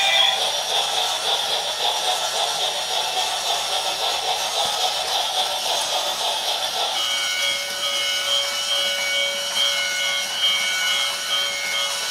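Battery-powered toy train's small motor and plastic wheels running round a plastic track, a continuous rasping rub. About seven seconds in, a steady high electronic tone starts over it.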